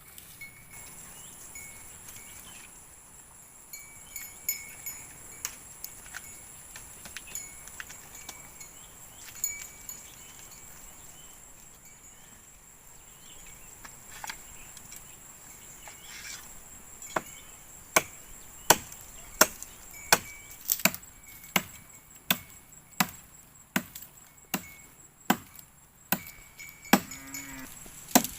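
Steady high insect buzzing with a few scattered knocks. A bit past halfway, regular chopping strikes begin, about three every two seconds.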